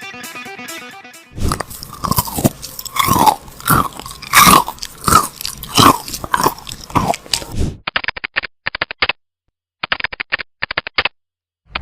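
A person chewing and crunching food close up, wet crunchy bites about twice a second for some six seconds, after the tail of some guitar music. Then come several short bursts of rapid clicking.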